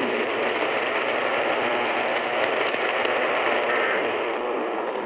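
AM radio hiss and static with no program audio: a steady noise over dead air.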